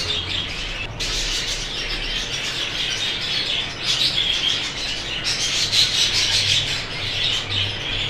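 A flock of caged exhibition budgerigars chattering and chirping continuously, many short calls overlapping with the odd louder squawk.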